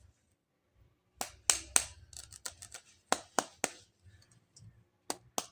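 Hands handling toys and their packaging in a run of sharp clicks and taps, silent for about the first second, then about a dozen quick clicks and two more near the end.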